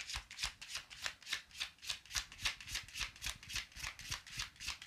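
A tarot deck being shuffled by hand: a quick, even patter of cards slapping against each other, about five or six strokes a second.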